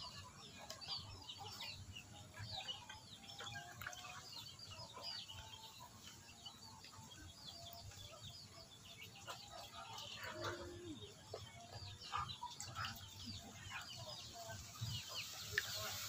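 Faint chickens clucking and small birds chirping, scattered short calls throughout.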